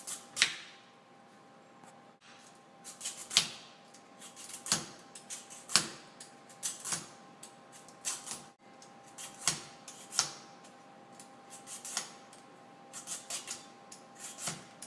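Vegetable peeler scraping the skin off a butternut squash: short, irregular strokes about once a second.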